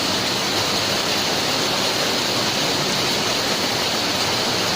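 Heavy rain pouring down in a storm, a steady, even hiss with no single impacts standing out.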